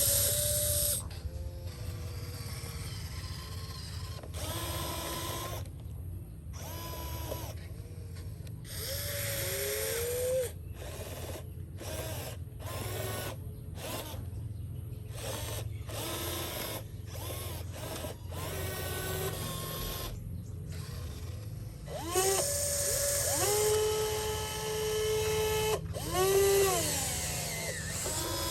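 A small electric motor whining, its pitch sliding up and down and holding steady in turns, with several abrupt cuts.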